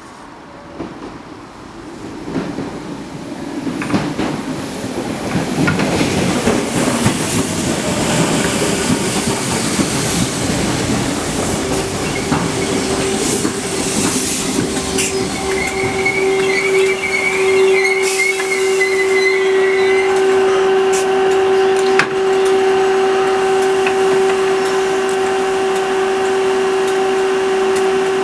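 Merseyrail PEP electric multiple unit coming into the station, growing louder over the first several seconds. A steady hum sets in about eleven seconds in and holds, with a brief wavering high squeal a little past the middle.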